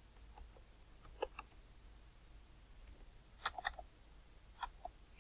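Faint clicking at a computer: a couple of clicks about a second in, a quick run of clicks a little past halfway, and two more near the end.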